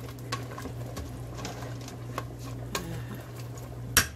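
Wooden spoon stirring in a stainless steel pot of simmering seafood boil, with scattered light knocks of the spoon against the pot over a steady low hum. Near the end comes a quick run of sharper, louder knocks.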